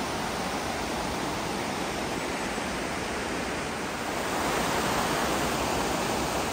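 Water rushing steadily over a low river weir, a little louder from about four and a half seconds in.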